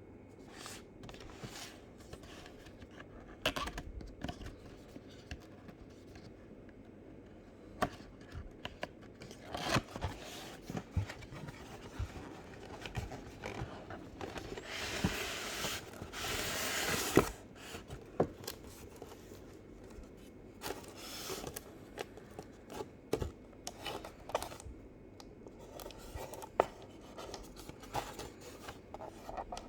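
Cardboard and plastic packaging of a boxed die-cast model car being opened by hand: scattered clicks, scrapes and crinkles, with one longer tearing sound lasting about three seconds just past the middle.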